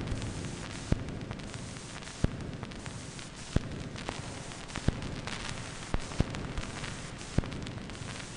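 Static hiss and crackle with sharp pops about once every second and a bit, the music fading out beneath it in the first second.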